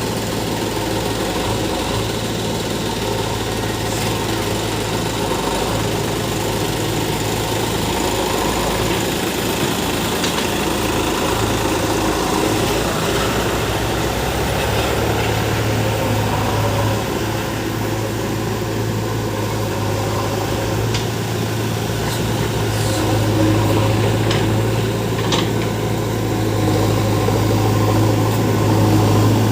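Diesel engines of a backhoe loader and a tractor running steadily with a constant low hum and a few faint knocks.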